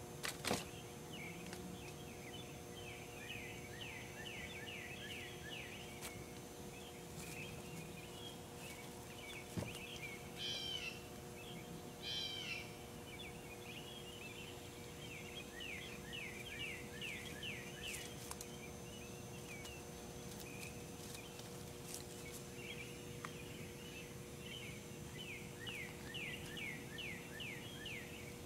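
Outdoor night ambience: runs of rapid, high, downward-sliding chirps that recur every few seconds, over a steady low electrical hum. There is a sharp knock just after the start, and two louder, higher calls about ten and twelve seconds in.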